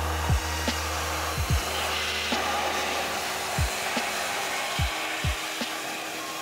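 Handheld electric detailing blower (Griot's Garage AirStream dryer) running with a steady rush of air, over lo-fi music with a deep, dropping kick drum a few times.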